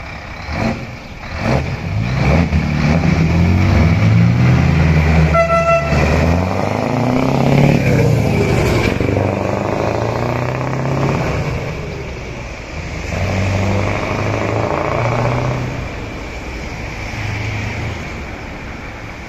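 Scania 164L 480's V8 on an open exhaust pipe pulling away under load. The revs climb and drop through several gear changes as it accelerates past. A short horn toot sounds about five and a half seconds in.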